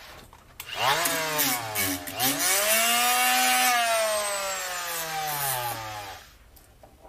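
Small converted cut-off tool (a Harbor Freight 3-inch cut-off tool fitted with a drill chuck as a die grinder) spinning a sanding disc to deburr the cut end of a rod. The motor whine rises, dips briefly and climbs again, with a rough grinding hiss over it for the first few seconds, then the whine falls slowly as the tool winds down.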